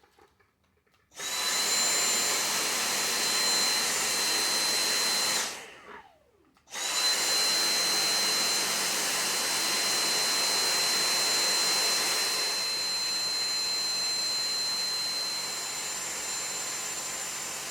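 Cordless Dyson stick vacuum motor running with a high, steady whine. It cuts out after about four seconds and winds down, starts again and runs steadily for about eleven seconds, then shuts off and winds down. The machine now stays on under power, a sign the fault is cured.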